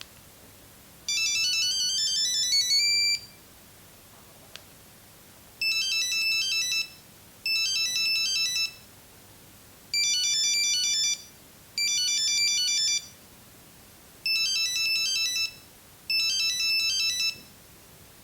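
Nokia 6310 monophonic ringtones playing from the phone's buzzer. First comes a quick rising run of beeps lasting about two seconds, then six short bursts of rapid beeping melody, about a second each, in three pairs with pauses between. A faint click sounds about four and a half seconds in.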